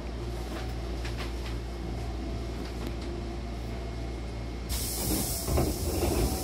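Hankyu commuter train's sliding doors closing: a steady low hum from the stopped train, then about five seconds in a sudden loud hiss of air as the door engine releases and the doors begin to slide shut, with rumbling and knocks of the moving door leaves.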